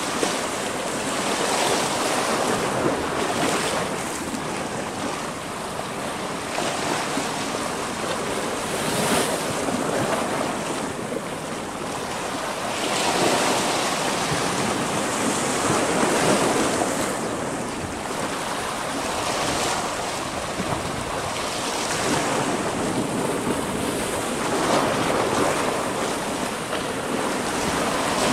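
Sea waves washing in and breaking against a rocky shore, the surf swelling and falling back every few seconds.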